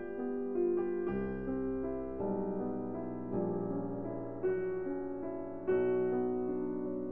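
Background music on a piano-like keyboard: slow chords of held notes, a new chord struck about every second.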